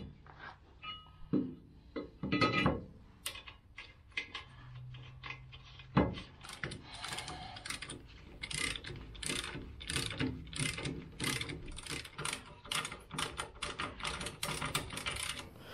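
Hand socket ratchet clicking in quick, even strokes, about three clicks a second from about six seconds in, as it runs down a ball joint stud nut on the steering knuckle. Before that, scattered metal clinks and knocks of tools and parts.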